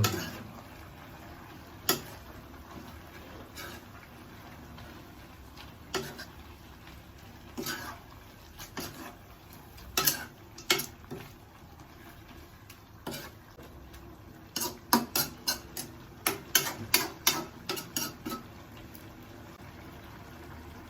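A metal utensil knocks and scrapes against a cooking pot while stirring a coconut-milk stew. The strokes are scattered at first, then come as a quick run of clinks about two-thirds of the way through.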